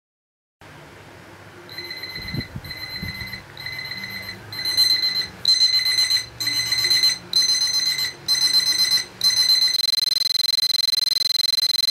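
Smartphone alarm beeping: short bursts of a high electronic beep repeat about every three-quarters of a second, louder from about halfway, then run together into one unbroken tone for the last two seconds.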